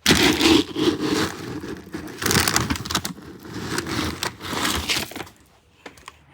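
A scoop digging into dry cat food, the kibble rustling and rattling in several loud swells for about five seconds, then stopping.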